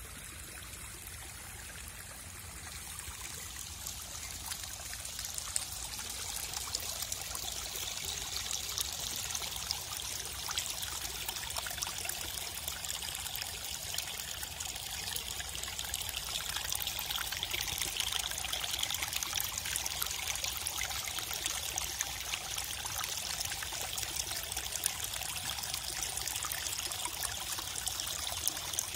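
Rainwater runoff after heavy rain, trickling and pouring with many small splashes; it swells louder a few seconds in and then runs on steadily.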